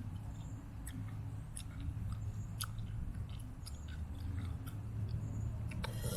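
Close-up chewing of soft, liquid-filled banana bubble gum: irregular wet mouth clicks and smacks over a low steady rumble, with a louder noisy burst near the end.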